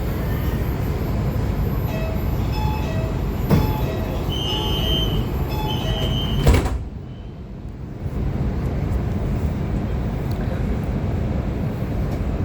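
Guangzhou Metro Line 5 train's door-closing warning: a short chime of tones, then two long high beeps, and the sliding doors shut with a thump about six and a half seconds in. The car goes quieter for a moment before its steady running noise comes back.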